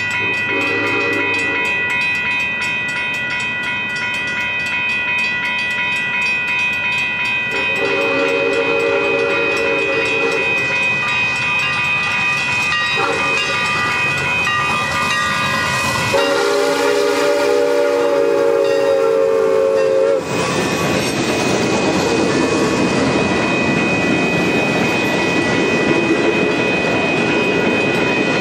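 Santa Fe 3751's steam chime whistle blowing four blasts, the second and last held longest, over a steady high ringing as the locomotive approaches. From about twenty seconds in, the rumble and clatter of the passenger train rolling past close by.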